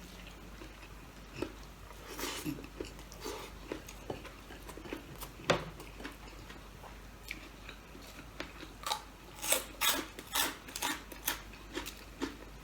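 A person eating close to the microphone: chewing and mouth sounds in short bursts, with occasional sharp clicks of utensils on a plate. The bursts come closer together in the last few seconds.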